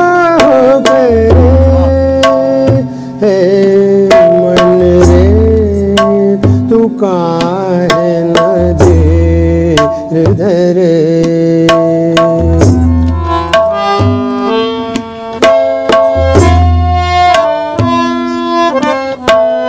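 Harmonium and tabla playing a slow devotional bhajan, with a man's voice singing along at times.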